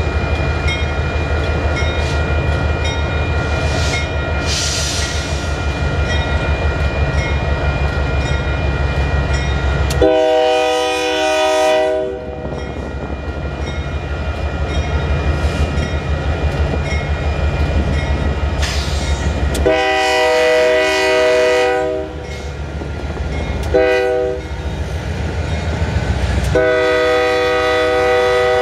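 Union Pacific freight train's lead GE Dash 9 diesel locomotive sounding its air horn in the grade-crossing pattern: two long blasts, one short, then a long one that starts near the end. Under the horn, the locomotives' diesel engines rumble and pulse steadily as they come past.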